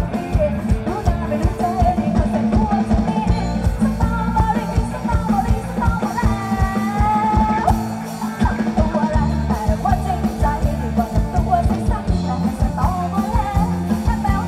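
Live rock band playing through stage loudspeakers: electric guitars and drums with a steady beat, and a singer.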